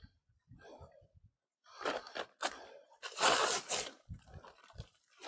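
Rustling and crunching handling noise in a few separate bouts, loudest about three seconds in.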